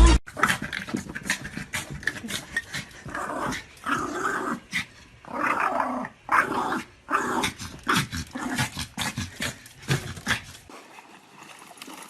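A dog growling in repeated short bursts, with scattered clicks and knocks around it; the growls stop about ten seconds in.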